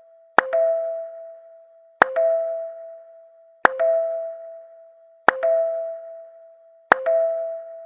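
Two-note chime sound effect of the doorbell or notification kind, repeated five times about every one and a half seconds. Each ring is a sharp strike followed almost at once by a slightly higher note that rings on and fades.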